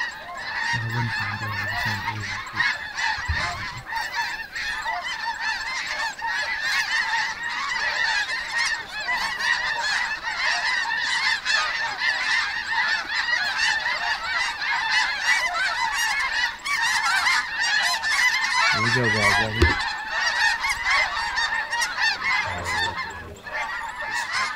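A huge flock of snow geese calling overhead: a dense, continuous din of countless overlapping honks.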